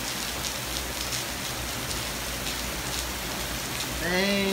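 Heavy rain falling in a steady downpour, with faint ticks of drops striking hard surfaces.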